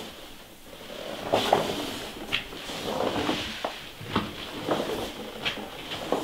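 Footsteps on a floor strewn with straw and debris, a knock every half second to a second.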